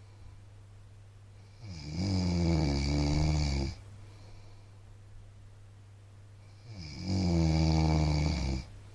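A man snoring: two long snores, each about two seconds, the first a couple of seconds in and the second near the end, about five seconds apart.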